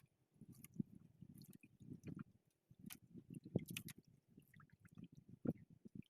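Faint, irregular wet sloshing and splashing of water, with scattered small clicks and knocks.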